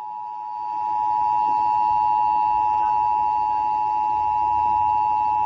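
Emergency Alert System two-tone attention signal (853 Hz and 960 Hz sounding together) broadcast by a radio station at the start of an EAS test. It is a steady, loud dual tone that swells up over the first second and then holds.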